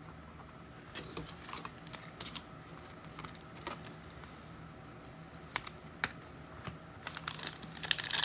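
Faint scattered clicks and taps of trading cards being handled and flipped through by hand, growing busier near the end.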